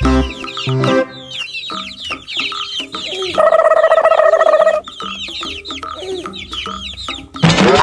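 Chicks peeping, many short high falling chirps, over background music. About three and a half seconds in a louder held pitched call lasts about a second and a half, and near the end a rising sweep comes in.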